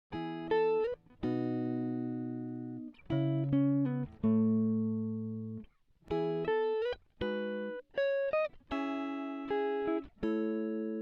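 Instrumental music: a plucked, guitar-like instrument playing single notes and chords, each note struck and then fading, with no singing.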